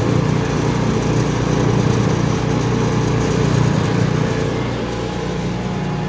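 Small gas engine of a rented mortar mixer running steadily under load as its rotating paddles churn a batch of cob (sand-clay fill, water and chopped straw).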